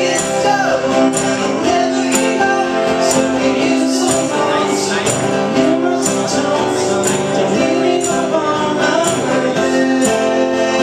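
Live acoustic music: two acoustic guitars strummed steadily with a sung melody over them. A bright, sharp accent falls about once a second.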